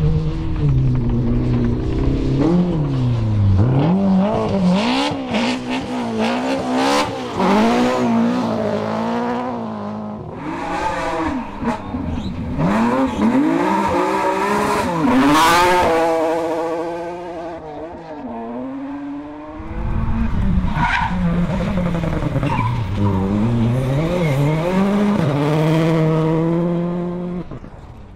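Rally cars passing at speed on a gravel stage, one after another: engines revving hard, pitch climbing and dropping again and again through gear changes and lifts, over tyre and gravel noise.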